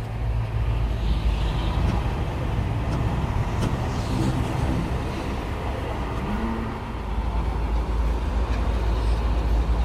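Freshly rebuilt six-cylinder Caterpillar diesel engine of a CAT 966E wheel loader, running with a steady low drone.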